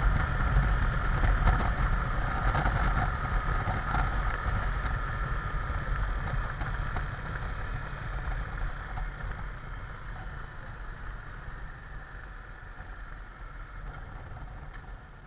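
Motorcycle engine running with road and wind noise, growing steadily quieter as the bike slows down.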